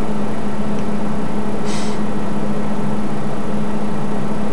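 A steady low hum over constant background noise, with one short hiss a little under two seconds in.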